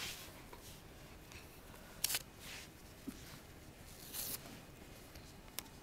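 Faint, quiet handling noises: a few brief rustles of school-jumper sleeves on carpet and of story-cube dice being picked up, with a small click near the end.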